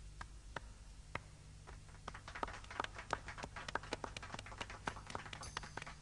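Faint, irregular sharp taps or clicks: a few at first, then several a second from about two seconds in, over a steady low hum.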